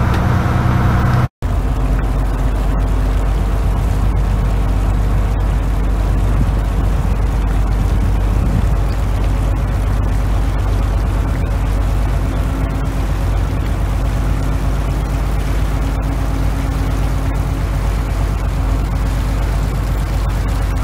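Tour boat's engine running steadily while under way, a low even drone. The sound cuts out for an instant about a second in.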